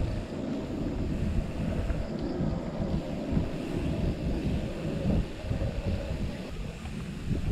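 Wind buffeting the microphone of a camera riding on a mountain bike, mixed with the rumble of the bike's tyres rolling over a sandy dirt track.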